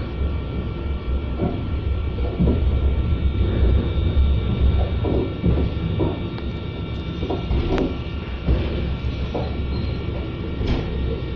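Passenger train running through a station yard, heard from inside the carriage: a steady low rumble with irregular clacks as the wheels cross rail joints and points, over a faint steady whine.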